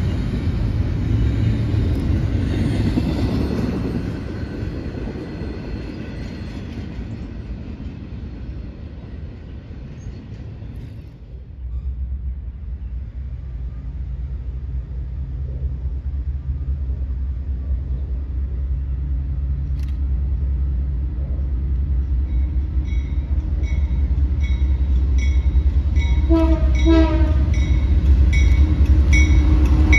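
Double-stack container cars rumbling past on the rails, fading away as the end of the train passes. Then a BNSF diesel freight locomotive approaches, its engine rumble growing steadily louder, with a bell ringing about once a second and two short horn blasts near the end.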